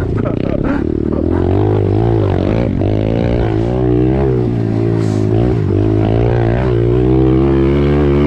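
Pit bike engines revving up and down while others run steadily underneath.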